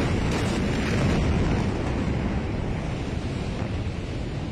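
Aftermath of a massive explosion of explosive material stored at a port: the blast wave buffets the phone's microphone with a loud, deep rushing rumble that begins just after the bang and slowly fades.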